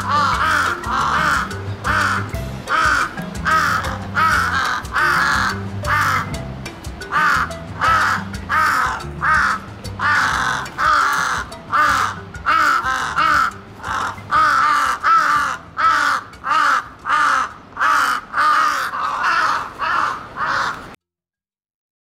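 Crow cawing over and over, short harsh caws about two a second, with background music underneath. The calls cut off suddenly near the end.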